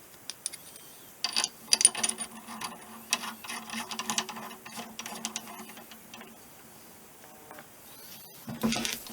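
Metal clicking and clinking as U-joint bearing caps and tools are worked into a steel driveshaft yoke, with a faint steady hum underneath. The clicks come thickest between about one and five seconds in, and a louder scrape follows near the end.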